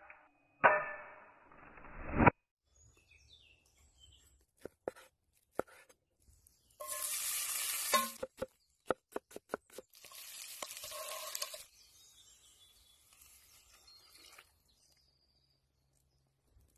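A knife slicing an onion on a wooden cutting board, a quick run of about six sharp chops about eight seconds in. Around it are cut-together cooking sounds: two loud pitched bursts at the start, and a loud hiss just before and another just after the chopping.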